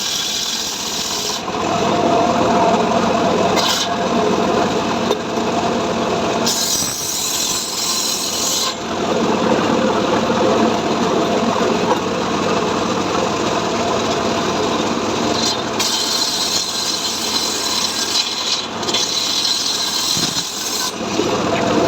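Engine-driven power saw running under load and cutting through dry mahogany wood. The cutting noise brightens and eases off in several stretches as the blade works through the wood.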